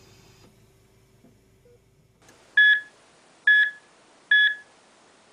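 Bedside patient monitor alarm beeping three times, a loud high electronic tone about a second apart, starting about halfway in. It is the alarm for a flat-line ECG with no heart rate.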